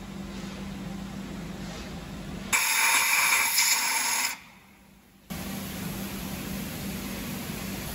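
Compressed air hissing from a shop air hose in one burst of about two seconds, starting and stopping abruptly about two and a half seconds in.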